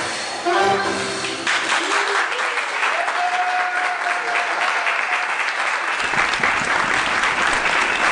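Audience clapping and calling out just after the belly dance music stops; the applause starts about a second and a half in and continues steadily, with a few voices in it.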